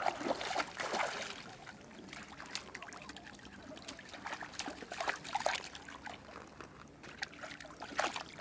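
Shallow water splashing and trickling around a small terrier wading through it, in irregular small splashes as its legs and snout move in the water.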